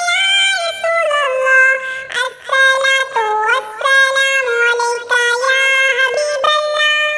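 High-pitched, synthetic-sounding voice singing a naat with no instruments, in long held notes that slide between pitches, with short breaks between phrases.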